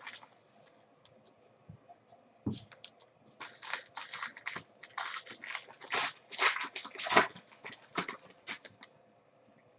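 Trading card packs being torn open and their wrappers crinkled, with cards handled. After a few faint ticks, a dense run of short, irregular crinkling and tearing rustles starts about three seconds in and stops just before the end.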